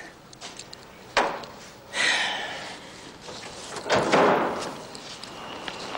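A sharp knock about a second in, a short hiss at two seconds, and a louder slam about four seconds in that rattles on for half a second.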